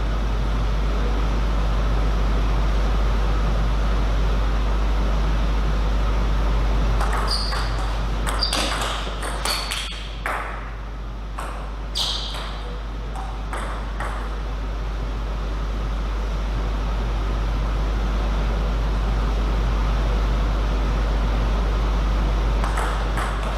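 Table tennis ball clicking off rackets and the table in a quick rally, a string of sharp ticks with a short high ring lasting several seconds about a third of the way in, with a few more hits near the end. A steady low hum runs underneath.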